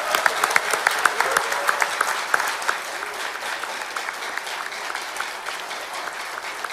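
Convention audience applauding and cheering after a rallying line of the speech, with many claps and some voices calling out at first. The applause slowly dies down.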